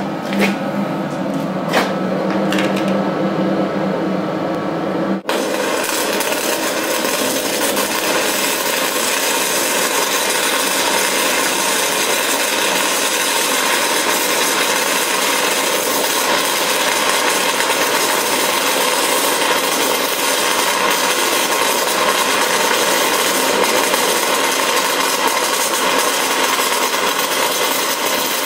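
Stick (SMAW) welding arc crackling steadily and evenly on steel plate, from about five seconds in to the end. Before that there is a low hum with a few sharp ticks.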